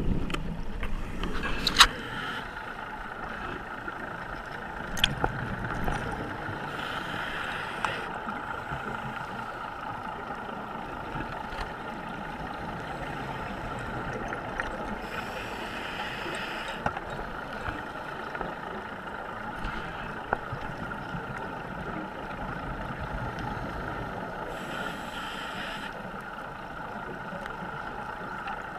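Underwater sound through a GoPro Hero3's waterproof housing: a steady muffled hum with a constant whine, and a scuba diver's exhaled bubbles gushing past about every nine seconds. A few sharp knocks in the first six seconds.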